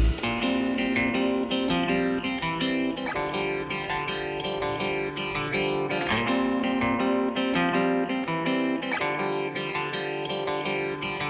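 Background music: a plucked guitar picking out a quick run of notes over held chords, with a touch of effects on the tone.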